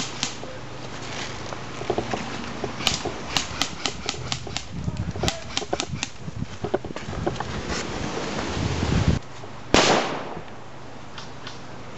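A loose counterweight rattling on a handheld camera steadicam, making irregular clicks and knocks as the camera is carried on the move. A brief louder burst of noise comes about ten seconds in.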